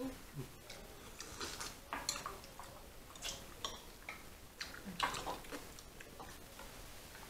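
Irregular sharp clicks and cracks of seafood being eaten by hand: crab and lobster shells being cracked and pulled apart, with the loudest crack about five seconds in.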